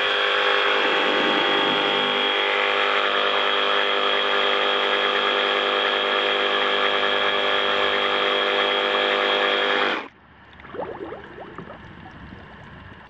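FLEX FX2271 24-volt cordless reciprocating saw running with its nose in a tub of water, a steady motor whine with splashing, still working normally after its water test. It stops abruptly about ten seconds in, leaving quieter sloshing water and wind noise.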